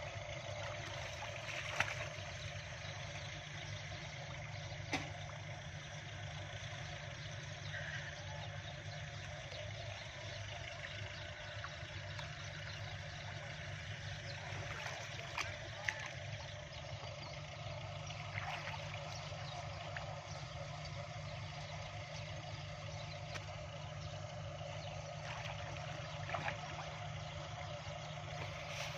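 A steady low engine hum runs throughout. Over it come faint sloshing and a few small splashes from hands groping in shallow, muddy canal water.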